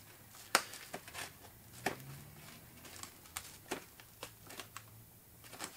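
Small packaged parts and a cardboard accessory tray being handled: a scattered series of small clicks and taps with faint rustling.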